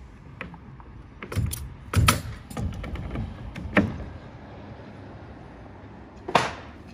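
Pneumatic nail gun firing into plywood roof sheathing: several sharp bangs at uneven intervals, a few close together about two seconds in and a last one near the end.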